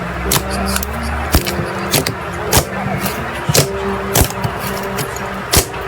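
Background pop music with held notes, overlaid by sharp clicks or snaps a few times a second at uneven intervals.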